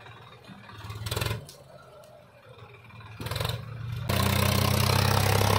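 Swaraj 963 FE 4WD tractor's diesel engine, faint and coming and going at first. From about four seconds in it runs loud and steady.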